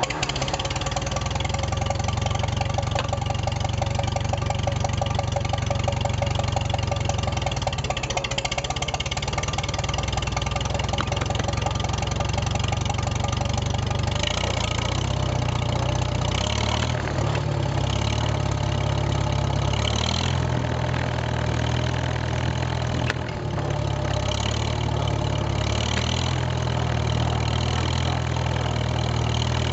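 1951 Farmall H's four-cylinder gasoline engine running steadily just after starting, heard close to its vertical muffler. It sits at first, then pulls the tractor along, with one brief drop in the engine sound later on.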